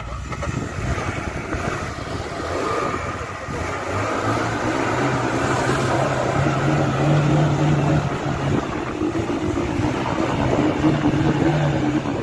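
A vehicle engine working hard under load, a steady hum under a dense rush of noise, growing louder about four seconds in.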